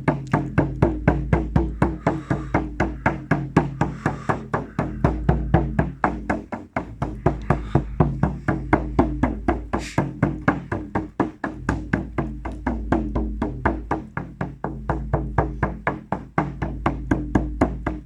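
Percussion music with a steady, fast drumbeat of about four strikes a second over a low drone, with a brief pause about six and a half seconds in.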